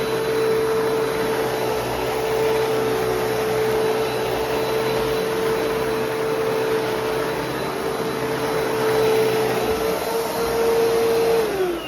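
Hoover Platinum Collection WindTunnel bagless upright vacuum running at full power, a steady rush of air over a high motor whine. Near the end it is switched off and the motor winds down, its whine falling in pitch.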